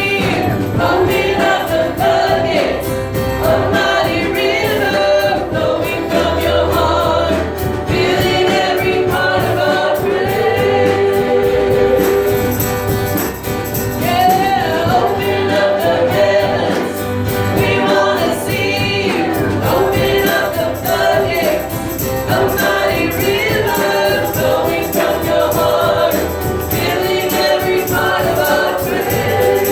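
Singers and a church worship band performing a worship song, with a steady beat.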